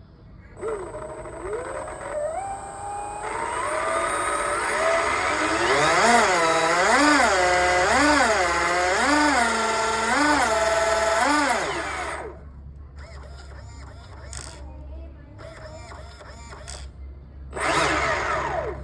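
Brushless outrunner electric motor of an RC boat outboard whining under throttle. Its pitch climbs over a few seconds, then rises and falls about once a second in six throttle blips before cutting off. After that come quieter clicks and a short whine near the end.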